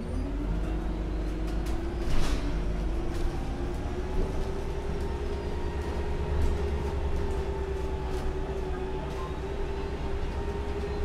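Heuliez GX 317 GNV natural-gas city bus idling while stationary. Its engine note rises at the start and then holds steady over a low rumble. A short hiss comes about two seconds in.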